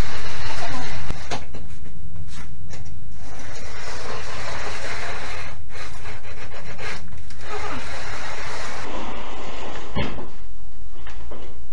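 Sheet steel on a hand sheet-metal bender scraping and rattling as it is handled, with a sharp knock near the end.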